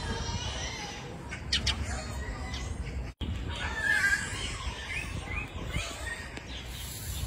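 A run of short, high animal chirps that rise and fall, clustered about four to five seconds in, over a steady low rumble.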